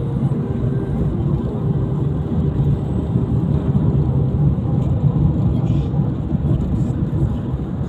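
Steady rumble of a car's engine and tyres on the road, heard from inside the cabin. A faint steady tone sits above it for the first four seconds or so.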